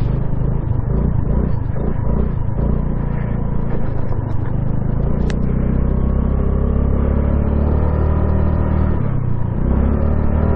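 2022 Honda Navi's 109cc single-cylinder engine running under throttle, with steady wind rush on the microphone. Its pitch rises slowly in the second half, drops briefly about nine seconds in, then picks up again.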